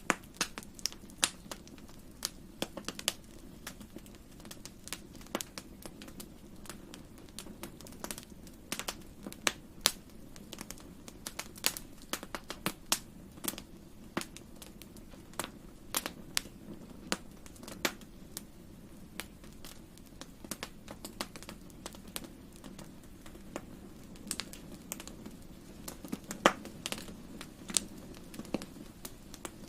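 Wood fire crackling in a fireplace: irregular sharp pops and snaps, some louder than others, over a steady low background.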